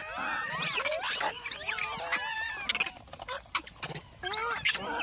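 Several monkeys calling at once: many short, overlapping squeals and chirps, with a few sharp clicks among them.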